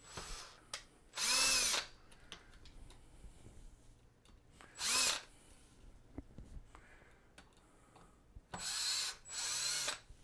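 Cordless drill/driver with a 4 mm hex bit backing screws out of a mobility-scooter transaxle's aluminium housing, in five short bursts. In each burst the motor spins up and winds down again. Small clicks come between the bursts.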